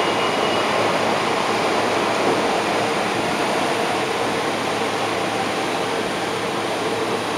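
Steady rushing noise of a Deutsche Bahn ICE high-speed train rolling slowly past on the adjacent track.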